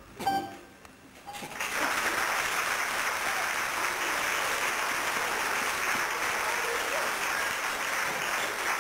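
Audience applauding, the clapping starting about two seconds in after a brief lull and then holding steady.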